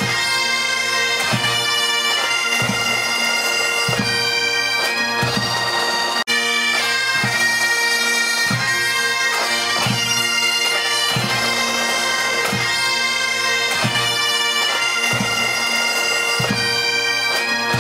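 Pipe band playing: bagpipes over steady drones, with a regular drum beat. There is a brief dropout about six seconds in.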